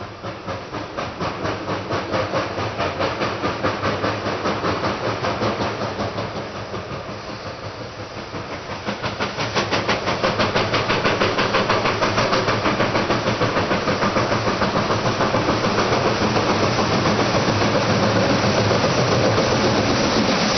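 Southern Pacific 745, a 2-8-2 Mikado steam locomotive, working hard under power, with a rapid, steady exhaust chuff and hiss. It eases off for a few seconds near the middle, then grows louder as the engine comes close.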